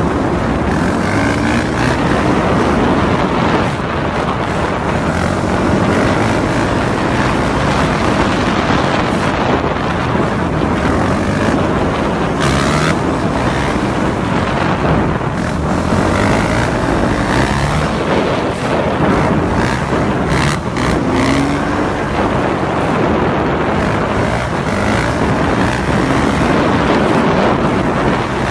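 Dirt bike engine running under throttle while the bike is held up on its back wheel, its note rising and falling as the rider works the throttle, mixed with wind noise on the microphone.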